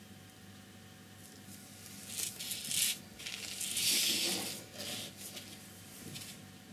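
A sheet of painting paper being slid and turned on a tabletop: a few short rustling scrapes, the longest and loudest about four seconds in.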